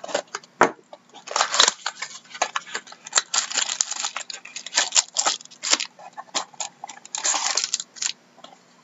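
Cardboard hobby box of hockey cards being torn open and its foil-wrapped packs handled: crackling rips and crinkles in bursts, with sharp clicks between.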